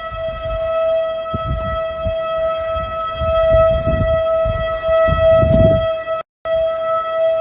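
Outdoor tornado warning siren, tentatively an STH-10, sounding a steady alert tone at one unchanging pitch. Low gusts of wind rumble on the microphone underneath, and the audio cuts out for a split second about six seconds in.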